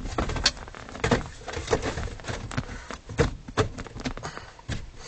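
Irregular clicks and knocks of hard plastic dashboard trim being handled and pushed into place around the steering column.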